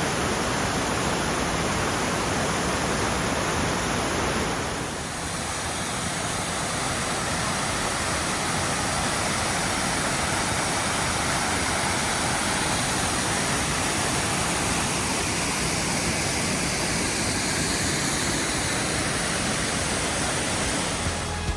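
Waterfall: a steady, loud rush of falling water, with a short dip and a change in tone about five seconds in.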